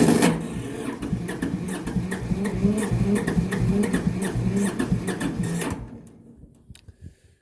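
Massey Ferguson 205-4 tractor's cold diesel engine cranking on the starter motor for about six seconds after glow-plug preheating, with a steady pulsing rhythm, then the starter stops without the engine catching.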